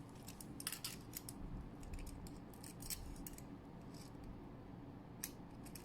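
Metal rubber dam clamps clicking and clinking lightly as they are handled, in scattered short clicks.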